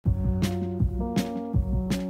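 Background music with a steady beat: deep bass hits alternate with sharp, crisp hits about every three-quarters of a second, over held notes.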